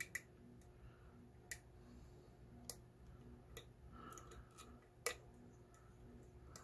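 Faint, sharp metallic clicks of a lock pick working the pin stacks of an ACE 40mm padlock under tension, irregular, about one a second, with the loudest about a second and a half, under three and five seconds in. The clicks are pins setting and dropping back during single-pin picking.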